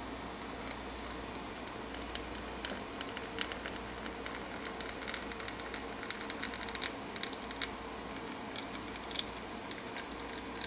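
Thick cornelian cherry syrup and mashed berries poured from a pan into a fine metal mesh sieve: irregular wet plops, splats and small crackles, growing busier partway through as the fruit slides out.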